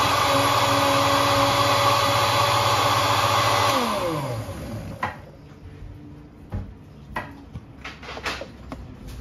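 Countertop blender running steadily as it purées cooked mushrooms in liquid, switched off about three and a half seconds in, its motor winding down in pitch. A few light clicks and knocks of the plastic lid being handled follow.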